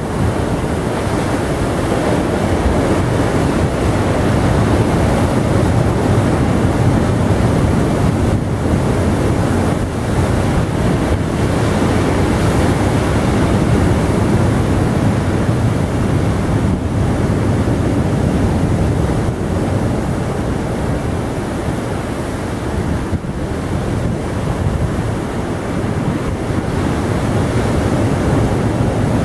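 Heavy surf breaking and surging over boulders on a rocky shore: a loud, steady wash of churning water.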